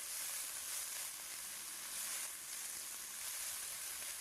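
Chopped onion and garlic sizzling steadily in hot olive oil in a pan.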